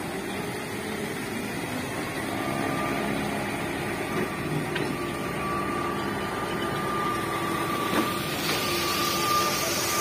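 Diesel engines of a concrete pump truck and a ready-mix mixer truck running steadily, with a high whine held over them and a sharp clack about eight seconds in.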